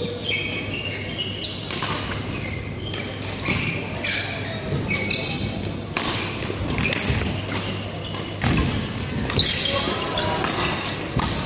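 Badminton shoes squeaking on a synthetic court mat in short, high-pitched chirps, with sharp racket strikes on the shuttlecock, echoing in a large sports hall. Voices murmur in the background.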